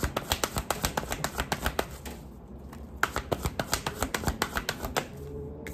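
A deck of tarot cards being shuffled by hand: rapid runs of card clicks and flicks, stopping for about a second midway and then starting again.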